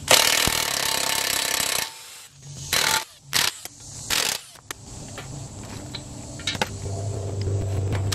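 Cordless impact wrench hammering loose the five spindle nuts on a Dana 60 kingpin front axle: one long run of about two seconds, then three short bursts.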